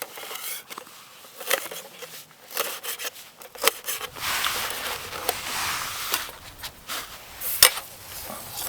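Knife dicing an onion: irregular sharp taps of the blade, with scraping and rubbing between the cuts.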